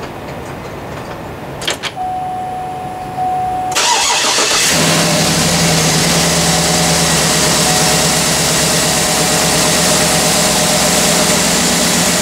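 A click and a short steady tone, then about four seconds in the 2008 Cadillac Escalade ESV's 6.2 L Vortec V8 cranks and starts on a cold morning. It settles into a steady idle with no belt squeal, its serpentine and AC belts newly replaced.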